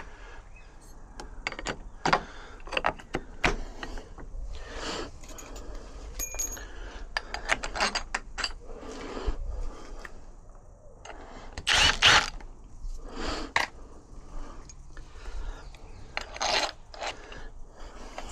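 Metal parts of a UPVC door lock gearbox and handle set being handled and fitted: scattered clicks, clinks and short scrapes, with a louder scrape about twelve seconds in.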